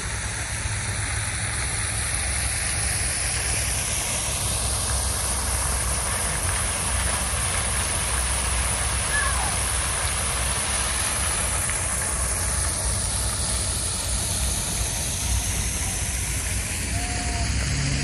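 Steady outdoor rushing noise with a deep rumble underneath, the mix of splashing fountain water and passing traffic, rising slightly in level after the first second or two.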